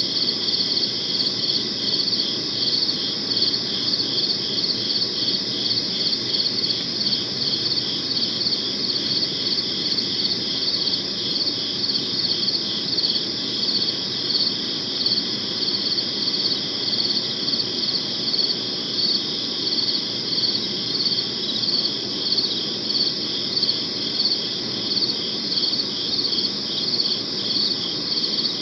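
Crickets chirping steadily in a dense, rapid pulsing trill, with a soft low background hum of night ambience.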